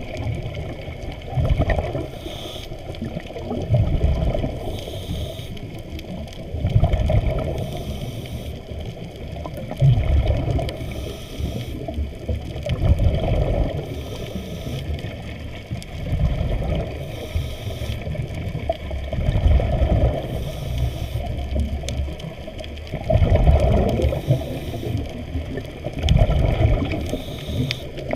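Muffled underwater water noise picked up by a camera in a waterproof housing moving over the reef: a continuous low rushing and sloshing that swells in surges every few seconds.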